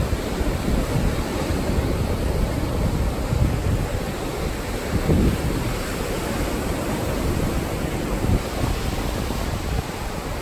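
Surf breaking and washing up a sand beach in a steady rush, with gusts of wind buffeting the microphone.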